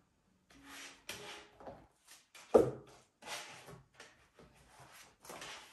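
Sheets of paper being handled and slid about on a wooden table in a series of short rustles, with one sharper knock about two and a half seconds in, the loudest sound.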